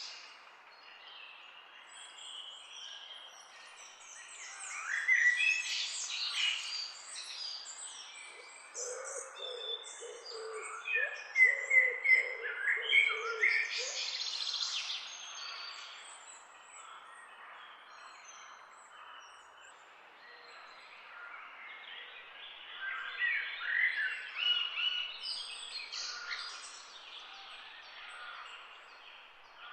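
Several birds chirping and singing together, with busy bursts of quick, high calls and quieter gaps between them.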